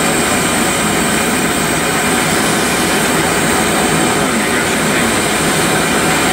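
Lampworking bench torch flame burning with a steady rushing hiss.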